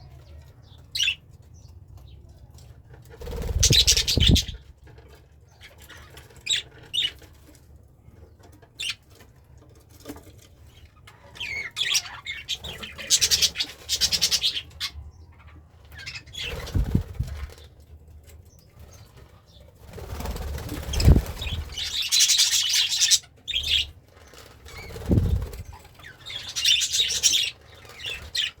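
Pet budgerigar chirping and chattering in repeated bursts of a few seconds each, with a few low thuds mixed in with some of the bursts.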